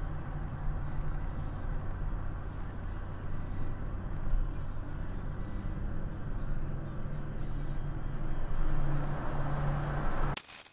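Car driving, heard from inside the cabin through a budget action camera's built-in microphone: a steady low engine and road rumble with a faint hum. It cuts off suddenly near the end.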